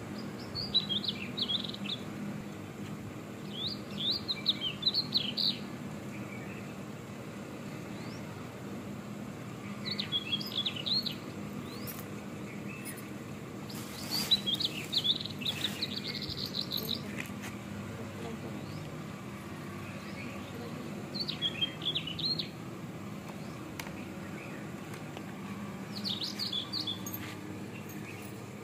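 Birds chirping at dawn in short bursts of rapid, high twittering, about six times, over a steady low hum.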